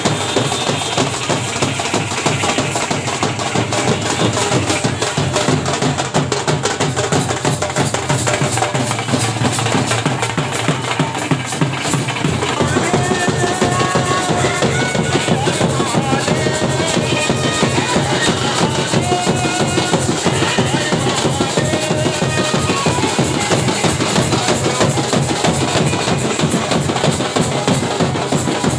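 Loud music with heavy, fast drumming and a bass drum beat; a melody joins about twelve seconds in.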